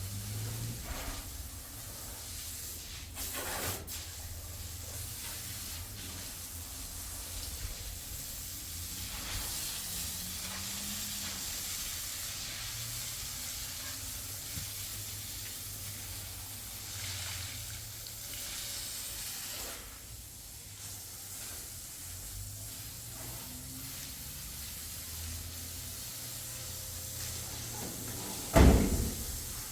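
Steady hissing noise over a low hum, with one sharp loud knock near the end.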